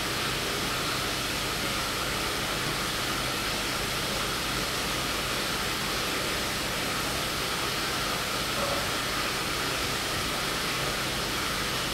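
Steady rushing noise with a faint low hum, from the running water and pump equipment of an indoor pond filtration system.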